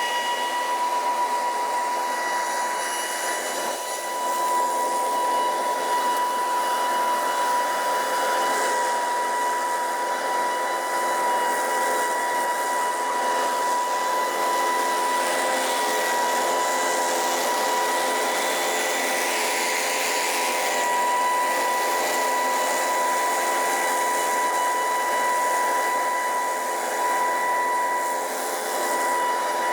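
2019 Scag Windstorm stand-on leaf blower running steadily at work: a high, even fan whine over the rush of blown air.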